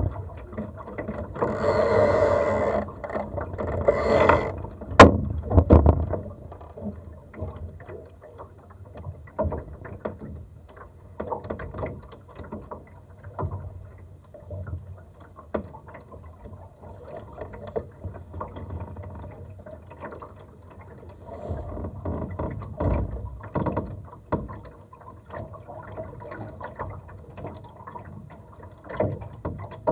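A Laser sailing dinghy moving in light wind: water laps against the hull, with many small knocks and rattles from the boat and its rigging. There is a louder noisy stretch in the first few seconds and a sharp click about five seconds in.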